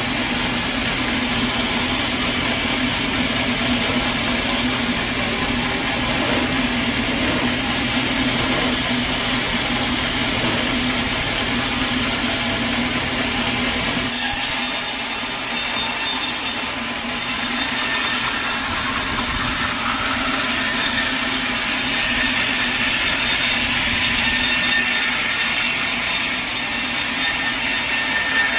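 A sawmill blade cutting through a log, a steady sawing sound. About halfway through the sound changes abruptly: the low machine hum drops away and the higher cutting sound comes forward.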